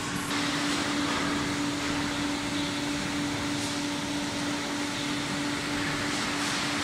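Steady hum of running industrial machinery: an even noise with a single constant tone held under it.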